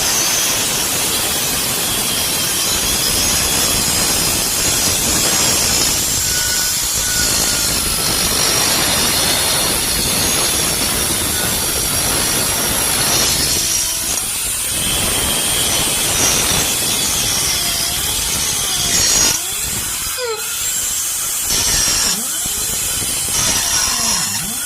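Pneumatic air grinder running at speed with a steady, loud hiss, easing off and coming back a few times in the last several seconds.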